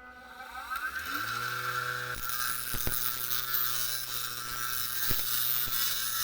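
Electric power tool motor switched on, spinning up in pitch over about the first second, then running steadily with a hum and hiss. There are a couple of short knocks along the way.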